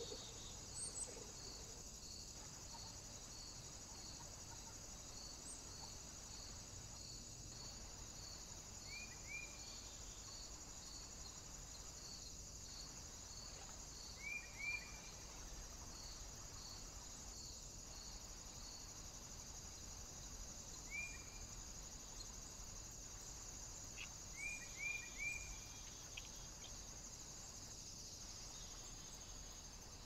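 Faint steady high-pitched chorus of crickets or bush-crickets, with one chirp repeating about every 0.7 s through the first half. A few short, high bird chirps break in, singly and in quick runs of two or three, the loudest near the end.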